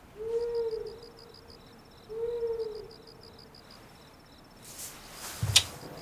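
An owl hooting twice, each hoot under a second and about two seconds apart, with a fast high trill of crickets behind it. Near the end, cloth rustling and a soft thump.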